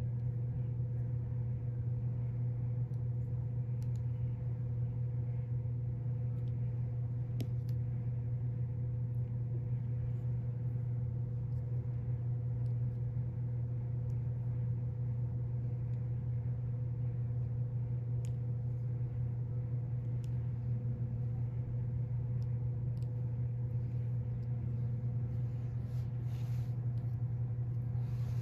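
Steady low machine hum with a fainter steady tone above it, unchanging throughout. A few faint soft clicks and touches as clay coils are pressed into place, with a little rubbing noise near the end.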